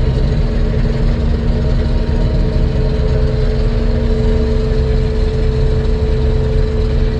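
Older diesel combine running steadily while harvesting soybeans: engine and threshing machinery with a constant low rumble and a steady hum.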